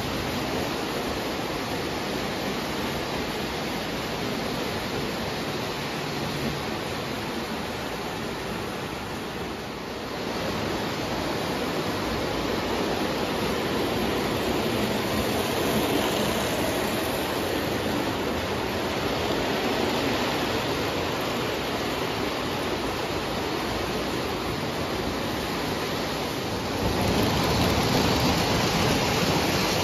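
Lionel O-gauge steam locomotive and passenger cars rolling on three-rail tubular track: a steady rumble of wheels and motor that grows louder near the end as the train comes close.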